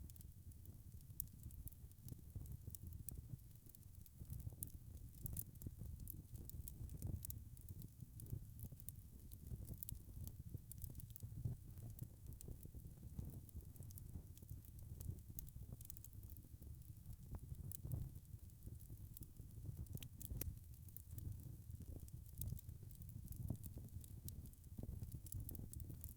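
Wood fire burning in a fireplace, crackling with many small, irregular pops over a low, steady rumble of flame.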